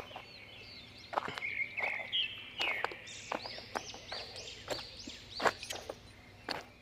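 Footsteps on loose stones, with irregular sharp crunches and clacks of rock underfoot. Small birds chirp over them throughout, many quick rising-and-falling calls.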